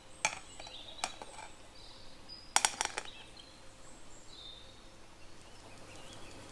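Dry flour mixture tipped into a fine stainless-steel mesh sieve over a glass bowl: a few light knocks of bowl and sieve rims, with a quick cluster of sharper knocks about two and a half seconds in, and a faint soft rustle of flour falling into the mesh.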